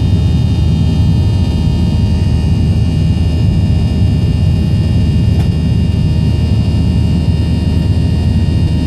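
Airliner cabin noise during the climb after takeoff: a steady, loud roar of engines and rushing air, with a thin whine of several steady high tones above it.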